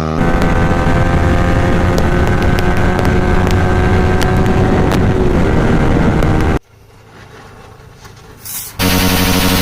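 Yamaha R15 V3's single-cylinder engine running through an Akrapovic silencer with its dB killer removed, a steady loud note with scattered sharp ticks. About six and a half seconds in it cuts off abruptly to a quiet stretch, and the steady engine note returns near the end.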